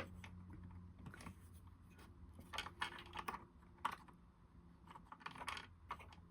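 Faint clicks and taps of small parts of a Singer Genie sewing machine being handled and set back in place during reassembly, over a low steady hum.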